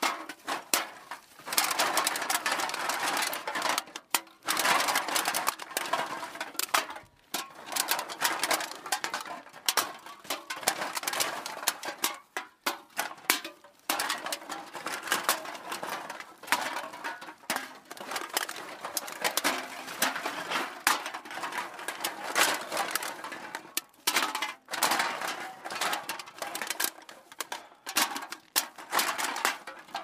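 Cans being put into a bag: a continuous clatter of cans clinking and knocking against each other, with a few brief pauses.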